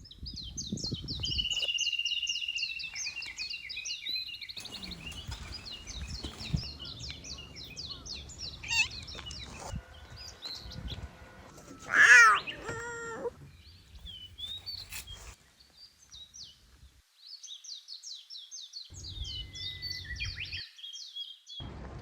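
Small birds chirping in quick repeated notes, with one loud cat meow, bending in pitch, about twelve seconds in.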